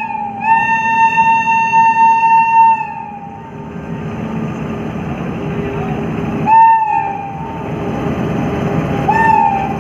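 Air horn of an Indian Railways WAG-9 electric locomotive. It gives one long blast of about three seconds that dips in pitch at the start and sags away at the end, then two short blasts that slide in pitch, about two-thirds of the way through and near the end. Under the horn is the growing rumble of the locomotive running past on the rails.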